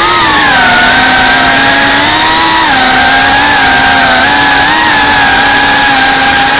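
Brushless motors and propellers of a small FPV cinewhoop drone, heard from the camera it carries: a loud whine that dips and rises a little in pitch as the throttle changes, over a steady rushing hiss.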